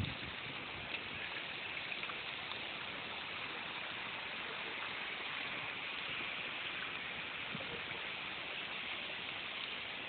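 Steady watery hiss from a flooded street, with a few faint ticks.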